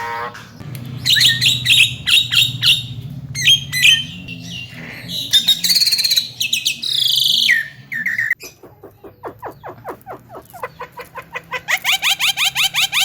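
Javan myna (jalak kebo) singing a varied, loud song: runs of quick repeated rising notes and harsher chattering phrases, ending in a fast, even series of rising notes.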